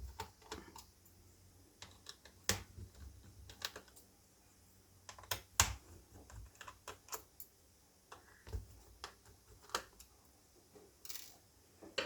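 Irregular small plastic and metal clicks and taps from hands working inside an opened laptop, with a few sharper knocks spread among quiet gaps.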